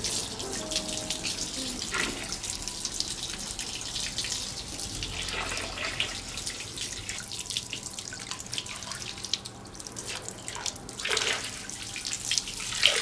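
Water from a hot-spring cascade shower (utaseyu) pouring and splashing without a break, with irregular louder splashes.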